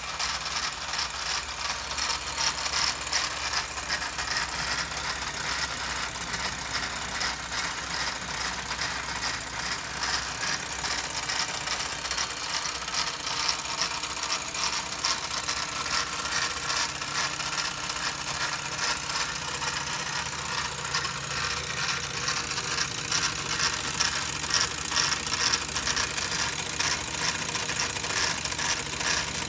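Model steam roller's small live-steam engine running steadily and driving a model drill press through a coiled-spring belt: a fast, even metallic clatter with a hiss over it.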